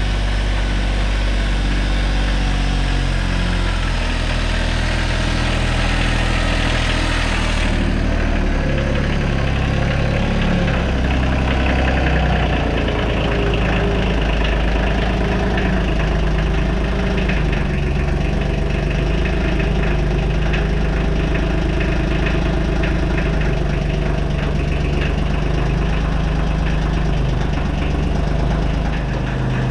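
Heavy-equipment engines running steadily at low revs: a Kubota KX91-2 compact excavator's diesel and a compact loader tractor. The hissy top of the sound drops away abruptly about eight seconds in.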